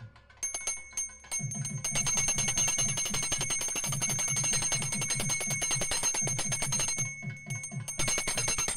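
Brass pooja hand bell rung rapidly and continuously during an aarti, starting about half a second in, with background music underneath.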